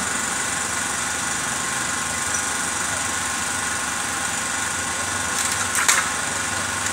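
Steady machine drone, with a few sharp knocks about five and a half to six seconds in.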